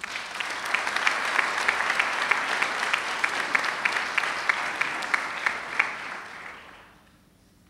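Audience applauding: many people clapping, starting all at once, with one nearer clapper's strokes standing out at about three a second, then dying away over the last second or so.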